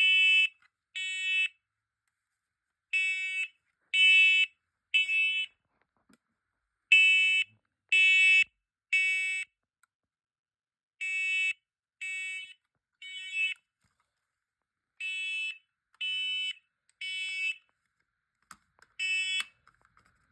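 First Alert smoke alarm sounding its shrill, high-pitched evacuation pattern: three half-second beeps, a pause, then three more, repeating steadily. This is the temporal-three pattern of a smoke alarm in alarm during a test.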